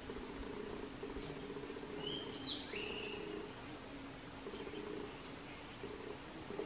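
Carpenter bee buzzing in short, repeated bursts as it struggles in a five-lined skink's jaws. A bird calls a few slurred whistled notes about two to three seconds in.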